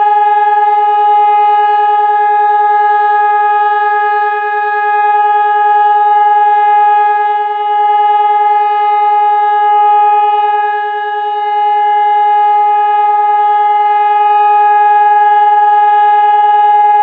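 Hörmann ECN 2400 electronic warning siren sounding one steady, unwavering tone, the German "Entwarnung" (all-clear) signal that means the danger is over. Its loudness swells and dips a little while the pitch holds.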